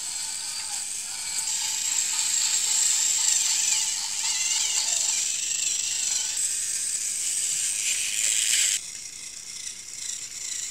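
Battery-powered toy train's small electric motor and gears whirring steadily as it runs along wooden track. The whir cuts off sharply about nine seconds in.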